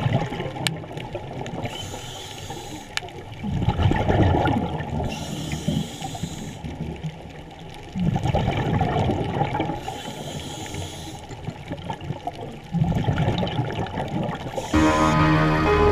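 Underwater bubbling from a scuba diver's regulator exhaust, coming in three surges a few seconds apart, each lasting two to three seconds, with a couple of faint clicks. Music starts near the end.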